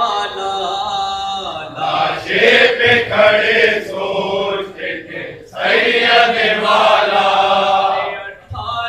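Male voices chanting a noha, a Shia lament, as a group recitation in long sung phrases.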